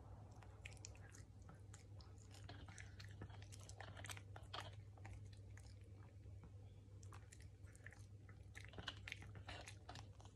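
Shih Tzu chewing small pieces of food taken from a hand: faint, irregular clicks of chewing and biting.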